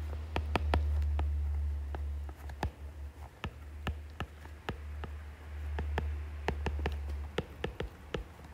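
Stylus tip tapping and clicking against a tablet's glass screen while handwriting, in quick irregular clicks, several a second, over a low steady hum.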